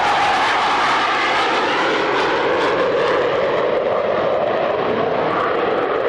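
Nimrod MR2 maritime patrol jet's four Rolls-Royce Spey turbofans roaring steadily as the aircraft flies past low.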